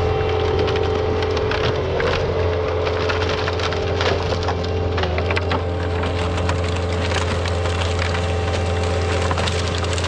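Bobcat skid steer's diesel engine running steadily while the machine pushes into a pile of sawmill slabs, wood cracking, snapping and splintering throughout.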